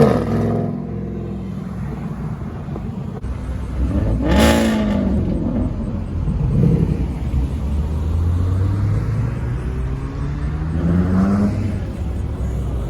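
Car engines rumbling at low revs, with a short rev blip about four and a half seconds in and another rev climbing in pitch as a car accelerates near the end.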